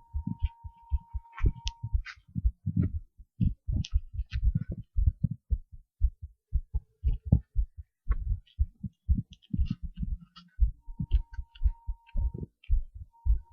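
Heartbeat recording: a steady run of low, dull thuds, with faint clicks over them. A thin steady high tone sounds for about the first two seconds and again near the end.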